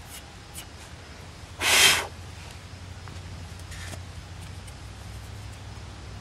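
A single loud, short snort through the nose, a little under two seconds in. Faint clicks come from a grease tube and tub being handled, over a low steady background hum.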